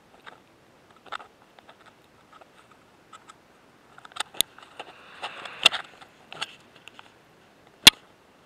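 Close handling noises of fishing tackle and line while a lure is changed: scattered light ticks and clicks, a stretch of rustling about four to six seconds in, and one sharp click near the end, the loudest sound.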